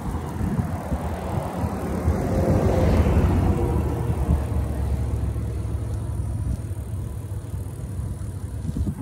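Wind buffeting the phone's microphone while cycling: a steady, rough low rumble that swells about three seconds in, then eases.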